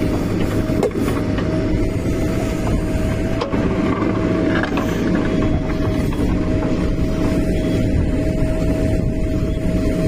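Diesel engine of a Mahindra EarthMaster SX backhoe loader running steadily under load while its backhoe arm and bucket push soil into a trench, with a steady whine above the engine note. Two faint knocks come about one and three and a half seconds in.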